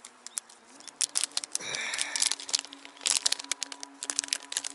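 Plastic tackle packet crinkling and crackling as it is handled, with many quick irregular crackles that grow busier in the second half.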